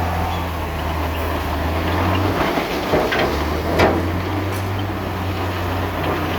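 Heavy diesel engine of a bulldozer running steadily, its low note breaking off briefly about midway, with two sharp metallic clanks around three and four seconds in, the second the loudest.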